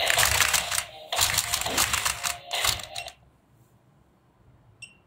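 Toy boxing robots running on 6 V from a bench power supply: a dense plastic rattling clatter with a steady whine, which stops about three seconds in when the power is cut. A single short beep from the power supply's button follows near the end.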